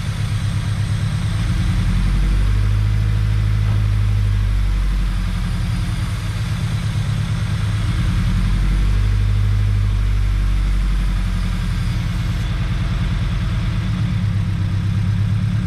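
Scion FR-S's newly installed FA20 flat-four idling through a new Tomei unequal-length header on its first start after an engine swap. The low idle note swells twice and settles, with a steady hiss alongside.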